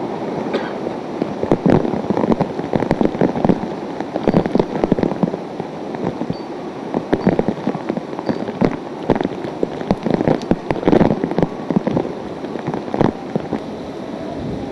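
Hurricane-force wind and driving rain, with many sharp, irregular crackles as gusts and rain batter the microphone.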